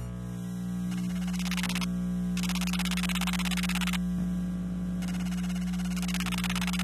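Radio-frequency interference from electronic devices, picked up by an RFI probe and heard as audio: a steady electrical buzz with many overtones. Three harsh bursts of rapidly ticking hiss come over it, each one to two seconds long, with a fast low pulsing between the second and third.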